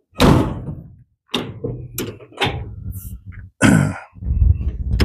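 Metal compartment doors on a truck's utility service body being shut and opened: a thunk as a door closes just after the start, several latch clicks, and another clunk a little before four seconds as a drop-down compartment door is let down on its straps.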